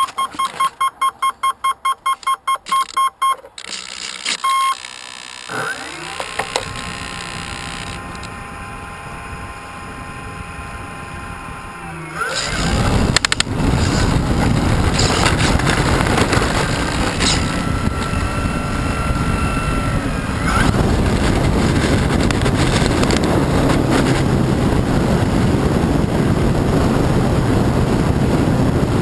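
A radio-controlled model airplane: a fast run of short electronic beeps, then a steady whine that rises slightly in pitch. From about twelve seconds in, a loud, steady rush of propeller and wind noise takes over.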